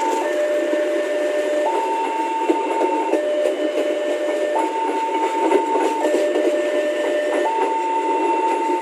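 Railway level-crossing warning alarm sounding a two-tone electronic signal, low and high alternating about every 1.2 seconds, while a train runs past over the rails.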